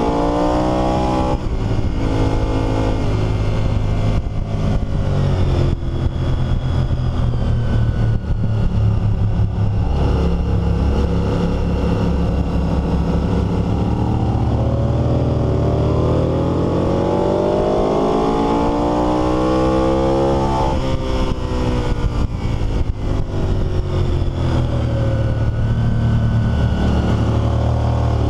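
Honda VTR1000 SP1's 90-degree V-twin engine on a race track, heard from a camera on the bike, its revs rising and falling repeatedly through gear changes and corners. A long climb in revs peaks about two-thirds through and then drops off sharply.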